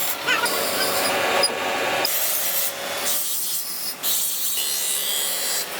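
Hand abrading of a knife made from a drill bit: rubbing, sanding strokes on an abrasive, in short clips that change abruptly.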